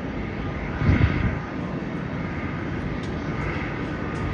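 Jet airliner engines running: a steady rumble of engine noise with a brief louder swell about a second in.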